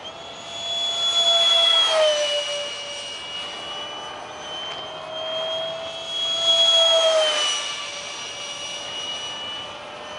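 The 70mm electric ducted fan of a foam-board RC jet whines as the jet makes two fly-bys. Each pass swells louder and the pitch drops as the jet goes by.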